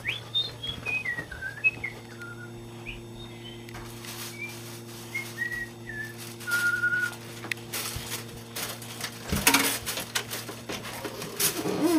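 A person whistling a short tune of falling notes, ending on one longer held note, over a steady low hum. About nine and a half seconds in comes a loud clatter as a door is opened.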